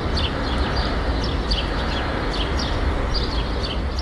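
City street ambience: a steady low traffic rumble with small birds chirping over it, short high chirps that repeat several times a second.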